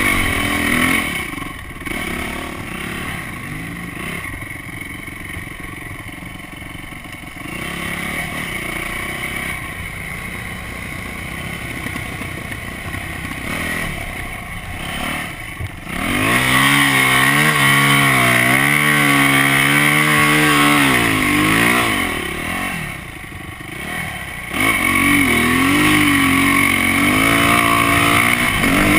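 Yamaha dirt bike engine heard close up from the bike, running at lighter throttle for the first half. About halfway in it is revved hard, its pitch rising and falling as the throttle is worked. It eases off briefly and then opens up again near the end.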